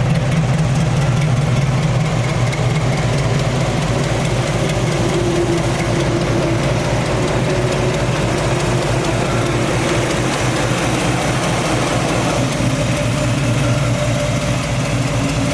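Small-block Chevy V8 in a modified Toyota FJ40 idling steadily. It is running smoothly, with no misses or surges.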